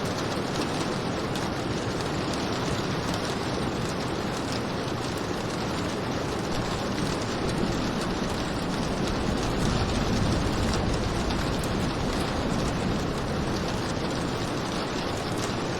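Steady rainfall, an even hiss of many drops with faint pattering, unchanging throughout.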